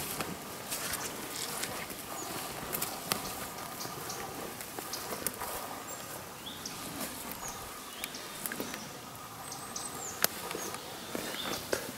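Outdoor ambience: a steady background hiss with scattered sharp clicks and knocks, and a few short high chirps.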